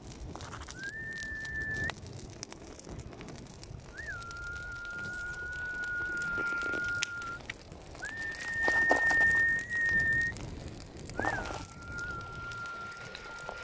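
A person whistling four long, steady held notes that alternate between a higher and a slightly lower pitch, each held one to three seconds; the lower notes start with a short upward flick.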